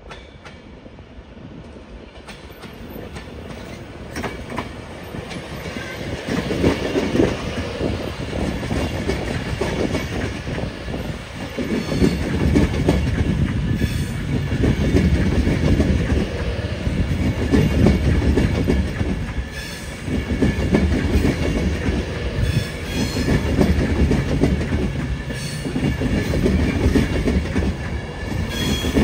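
A train running past close by. Its rumble builds over the first several seconds, then stays loud, swelling and easing about every two seconds as the wheels pass, with a faint high steady squeal above it.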